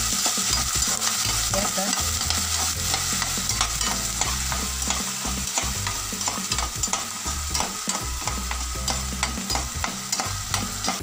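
Ginger-garlic paste sizzling in hot oil in a non-stick kadai on a low flame, while a metal slotted spoon stirs it, scraping and tapping against the pan many times over.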